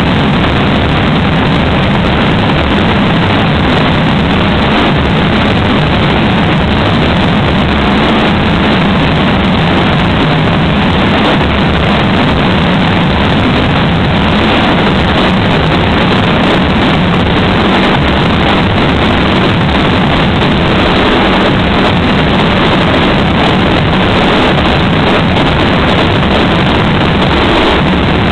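Loud, steady din of a packed festival street crowd.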